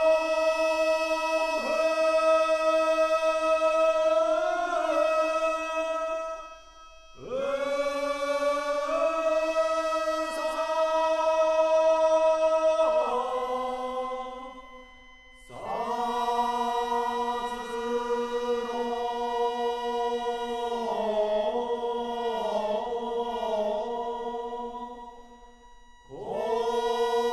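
A voice chanting long held notes in drawn-out phrases. Each phrase opens with an upward slide in pitch, and short pauses for breath come about every eight to ten seconds.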